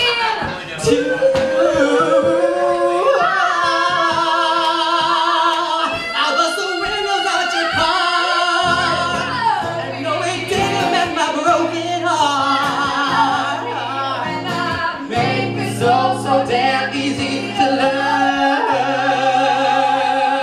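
A female and a male voice singing a soul/R&B duet live, with wavering vibrato and long held notes over acoustic guitar. Steady low accompanying notes come in about nine seconds in.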